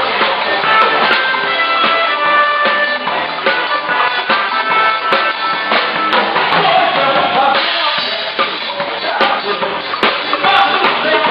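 A band playing music live, with a drum kit keeping the beat under held instrument notes.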